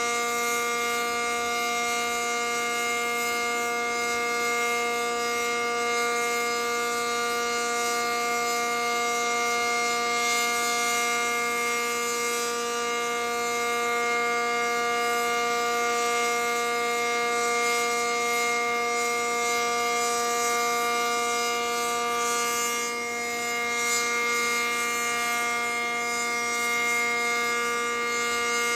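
ACA Cyclone 125 outdoor warning siren sounding the steady Alert tone, held at one pitch throughout.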